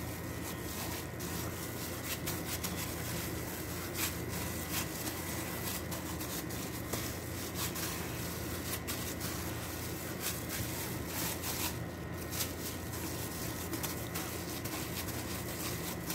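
Hands in thin plastic gloves kneading soft bread dough in a plastic bowl: continuous rubbing and crinkling with many small clicks and soft slaps, over a faint steady hum.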